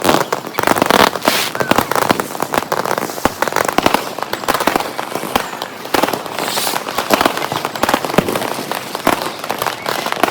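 Many fireworks and firecrackers going off at once in rapid, irregular succession: a dense run of bangs, pops and crackles with no let-up.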